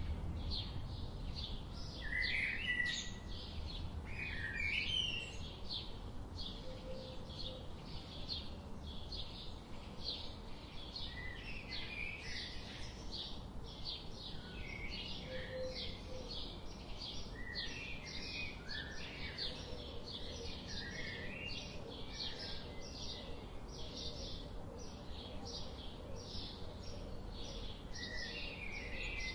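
Budgerigars chattering: a dense, continuous stream of short high chirps, with a few louder warbling notes a couple of seconds in and again around five seconds.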